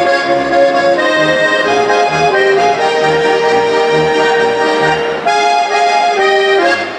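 Swiss folk band music: a Schwyzerörgeli and a chromatic button accordion play the tune in chords over a plucked double bass that keeps a steady beat about twice a second. The accordions hold one long note for a couple of seconds in the middle.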